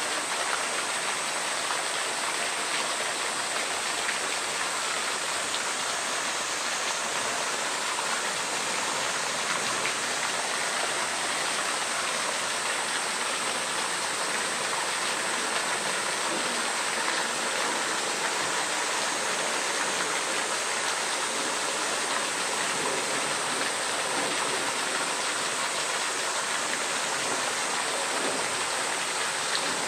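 Steady rushing of running water, even and unbroken, with a thin high hiss above it.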